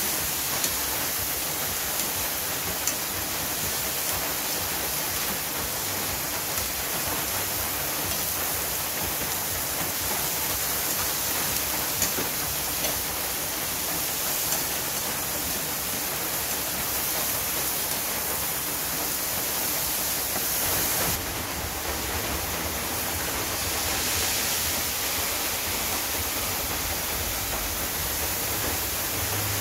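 Vegetables sizzling in hot oil in a wok, a steady hiss, with a few light clicks of a metal spatula against the pan as they are stirred.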